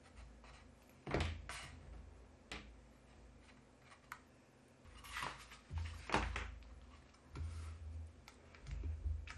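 Scattered light knocks and low thuds from hands working at a craft desk: a liquid glue bottle being set down and cardstock pieces handled and pressed flat, the knocks bunching up near the end.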